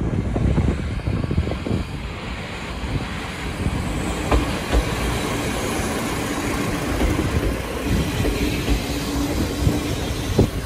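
Kominato Railway KiHa 200 two-car diesel railcar passing close by, its engine running and its wheels clacking over the rail joints. A steady hum comes in about four seconds in as the cars go past.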